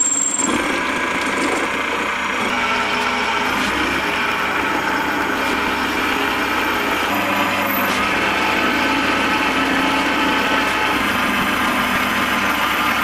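Small benchtop metal lathe running, its spindle turning a metal bar while the cutting tool takes a cut, making a steady machining sound.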